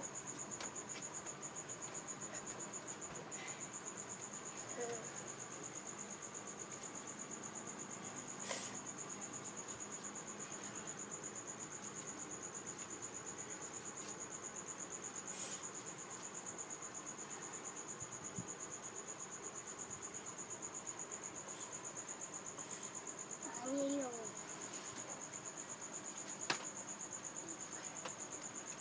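A cricket trilling steadily in a fast, even pulse throughout, with a couple of soft knocks and a brief child's vocal sound near the end.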